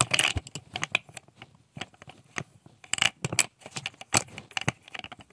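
Makeup brushes clicking and rattling against each other and their holder as they are rummaged through in search of one brush: a run of quick, irregular clicks and taps.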